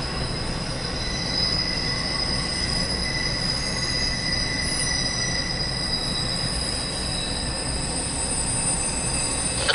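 Norfolk Southern intermodal train rolling past over a steady rumble, its wheels giving steady high-pitched squealing tones.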